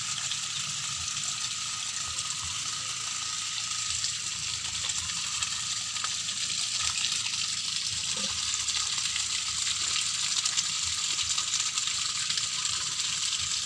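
Pumped water gushing steadily from the end of a PVC pipe onto the tarpaulin floor of a shallow tank, a continuous splashing rush.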